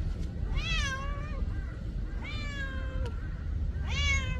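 A calico cat meowing three times, about a second and a half apart, each meow drawn out.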